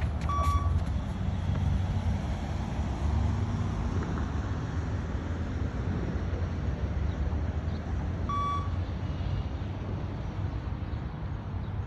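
Two short electronic beep-test beeps about eight seconds apart, each the stage-1 shuttle signal that the runner should reach the line, over a steady low rumble.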